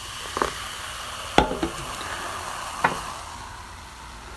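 Freshly poured lemon-lime soda fizzing in a glass, a steady hiss of bursting bubbles that slowly dies down; the soda is very fizzy. A few sharp clicks sound over it, the loudest about a second and a half in.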